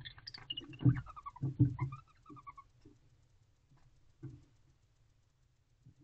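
Male barn owl giving its courtship call: a quick run of short chirps falling in pitch, lasting about two and a half seconds, with a few low thumps under it. A single dull knock follows about four seconds in.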